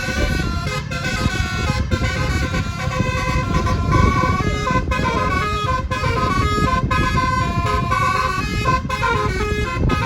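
Bus telolet basuri multi-tone horn playing a melody, its notes stepping up and down in quick succession over a low rumble.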